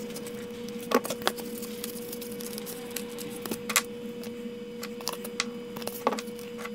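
Light clicks and taps of a cardboard paint mask and wooden lure being handled and positioned, over a faint steady hum.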